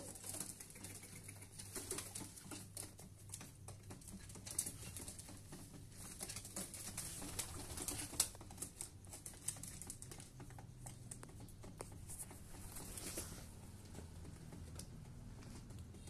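Domestic pigeons at wooden nest boxes being handled by hand: a continuous run of light rustling and clicking, with pigeon sounds mixed in.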